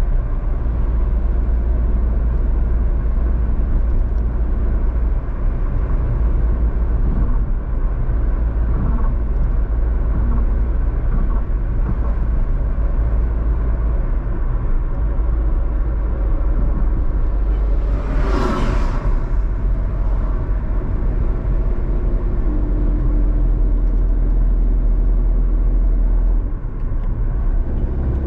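A car driving on the road: a steady low rumble of engine and tyre noise, with a brief louder whoosh about two-thirds of the way through.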